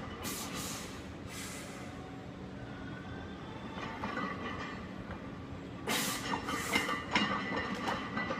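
Heavy barbell back squat with about 500 lb on the bar: short bursts of rattling and clinking from the loaded bar, about half a second in and again from about six to seven and a half seconds in, over a steady background hum.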